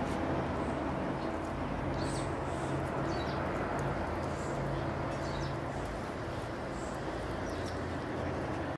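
Steady outdoor background noise with a low hum under it, and a few faint, short, high chirps scattered through it.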